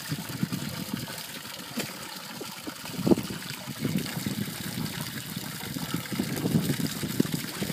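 Water splashing and sloshing as two tigers paw and move about in a plastic stock-tank pool, with a hose stream pouring into the water; irregular splashes, a louder one about three seconds in.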